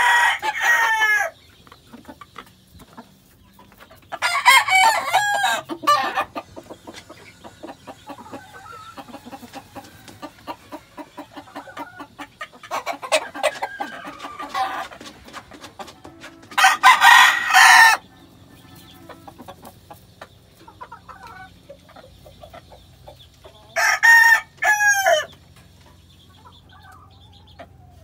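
Six-month-old Redquill/grey gamefowl cockerel crowing, four loud crows, each a second or two long, spaced several seconds apart. Fainter clucking and rustling in between.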